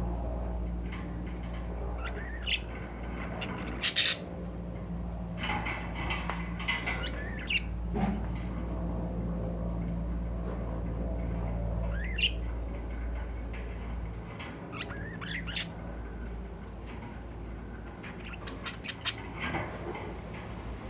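Pet budgerigars chirping and squawking in short, scattered calls, with a few louder squawks. Under them a steady low hum stops about two-thirds of the way through.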